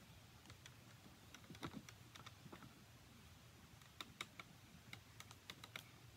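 Faint, scattered clicks and taps of hard plastic parts being handled as the arm pole of a Peekaboo Penny animatronic prop is fitted into its plastic torso mechanism, with a small cluster of clicks about four seconds in.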